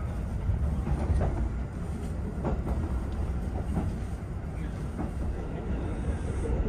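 A steam-hauled 35-series passenger coach running, heard from inside: a steady low rumble with scattered knocks and clatter from the wheels and running gear.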